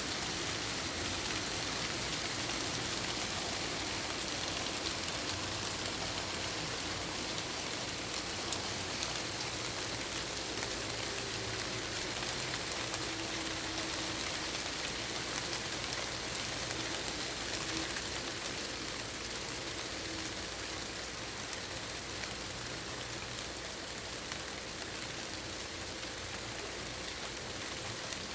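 Steady rain falling, an even hiss of rain on surfaces with a few separate drops ticking now and then.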